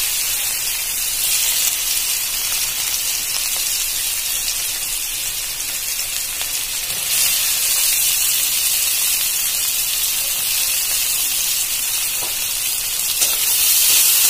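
Hot mustard oil sizzling steadily in an aluminium kadai with whole cumin seeds. It gets louder about seven seconds in as chopped onion goes into the oil. There is a knock near the end as a spatula starts stirring.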